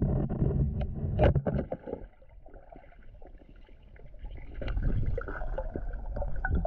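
Muffled underwater noise picked up by a camera below the surface: low rumbling water movement with scattered clicks and knocks. It is louder for the first two seconds and again over the last two, with a quieter stretch between.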